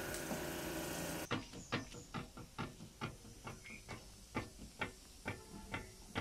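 A steady mechanical drone cuts off abruptly about a second in. Background music of sparse plucked guitar notes follows.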